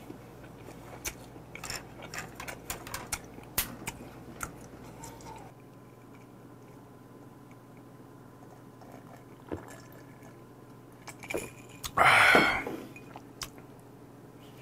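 Close-miked eating: chewing with many small clicks and smacks for about the first five seconds, then quieter. About twelve seconds in comes one short, loud, breathy burst.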